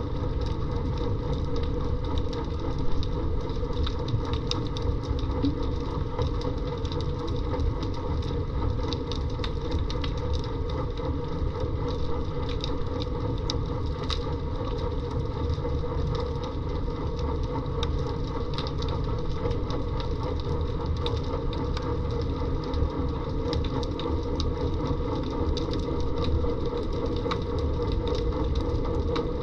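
Underwater sound picked up by a submerged camera: a steady mechanical hum with a low rumble and a few held tones, under a constant crackle of small sharp clicks.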